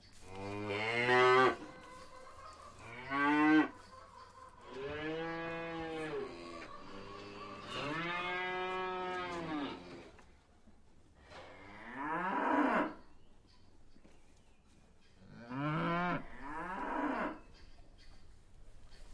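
Cows mooing: about eight moos in a row with pauses between, some short and some drawn out to about two seconds.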